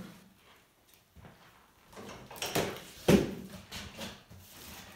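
Cardboard shipping box being opened by hand: the flaps are pulled up with scraping and rustling, and a sharp knock about three seconds in is the loudest sound.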